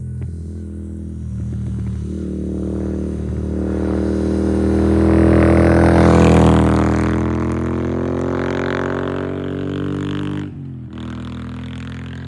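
Moto Guzzi V7's transverse V-twin with aftermarket Agostini short exhaust pipes riding past: the exhaust note grows louder to a peak about halfway through, drops slightly in pitch as the bike passes, and fades away. A steady droning background track plays underneath.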